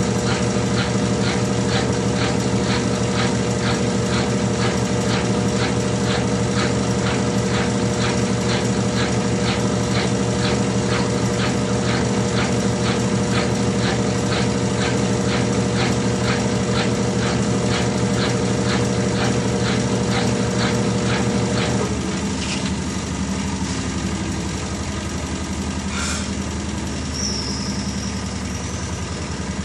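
Consul CWH12 12 kg washing machine in its final spin: a steady motor hum with a regular ticking about three to four times a second. About 22 seconds in, the motor cuts off and the drum coasts down, with a click and a short high chirp near the end.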